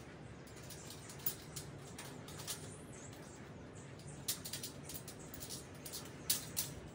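Small metal clicks and scratches as a part is fitted at the top corner of a stainless steel kitchen rack, with two sharper ticks, one a little past the middle and one near the end.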